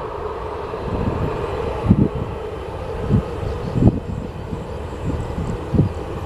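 Jet airliner engines running with a steady drone, with irregular low thumps of wind buffeting the microphone.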